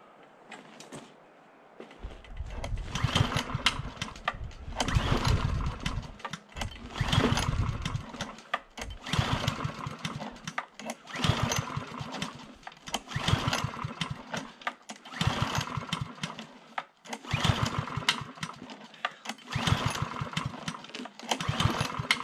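Pull-starting a Chinese Honda GXV-clone vertical-shaft mower engine by its recoil cord: about ten hard pulls, one every two seconds, each a short burst of fast cranking strokes, without the engine catching.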